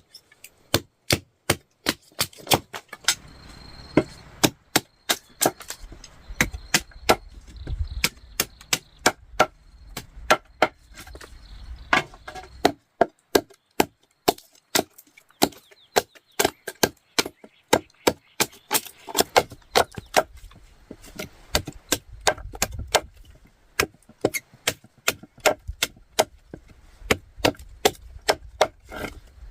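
A tool striking wood over and over, sharp blows at about two a second with brief pauses.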